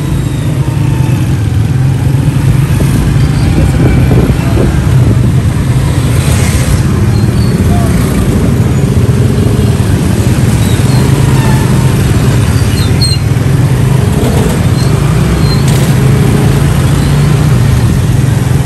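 Honda motorcycle engine running steadily as it rides through busy street traffic, with the engines of other motorcycles and auto-rickshaws close by.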